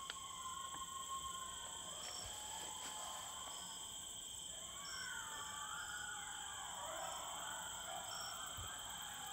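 Distant coyotes answering a howler call with a group chorus of wavering howls and yips. The chorus builds about halfway through, faint under a steady drone of crickets and other night insects.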